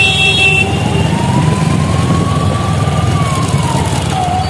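A siren wailing slowly, one tone rising in pitch over about three seconds and then falling, over a steady low engine rumble. A vehicle horn is still sounding at the start and stops about half a second in.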